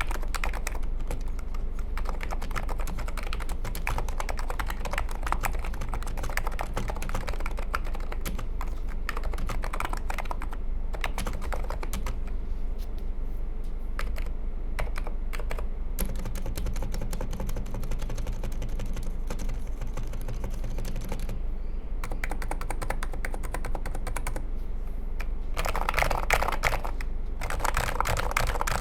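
Typing on a NIZ Plum X87 keyboard with electrostatic capacitive, Topre-clone switches: a continuous run of keystrokes, with a brief pause about three-quarters of the way through and louder, faster typing near the end.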